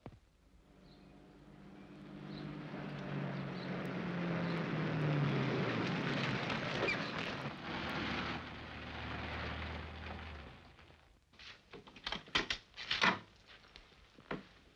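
Car engine running as a car drives up, growing louder and then cutting off about ten seconds in, followed by a quick run of sharp knocks and clicks from doors being opened and shut.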